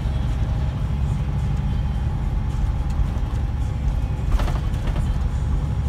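Scania K124 coach's rear-mounted straight-six diesel engine running under way, a steady low drone heard from inside the passenger cabin, with road noise. A short rattle sounds once about four seconds in.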